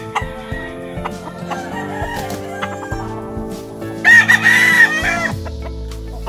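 A rooster crows once about four seconds in, a call of a little over a second that is the loudest sound here, over steady background music.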